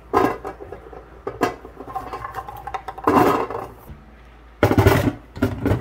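Chestnuts knocking onto the plastic tray of a NuWave countertop oven, then the clear dome lid being set down over them: several separate clatters and knocks, the loudest near the end.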